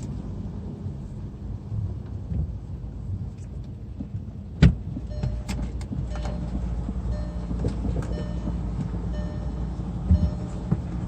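Car engine and road rumble heard from inside the car, with one sharp loud knock about halfway through. After the knock a steadier hum carries on, with short high tones repeating at intervals.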